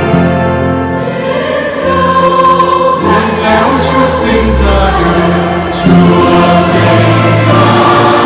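Choral background music: a choir singing held notes over instrumental accompaniment.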